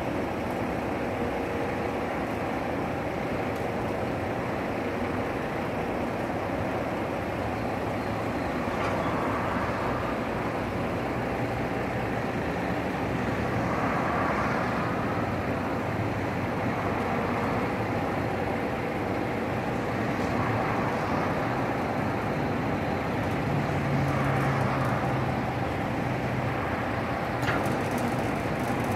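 SEG 2.0 industrial sliding-gate motor running steadily as the heavy steel gate rolls along its track, a continuous mechanical rumble with a faint hum.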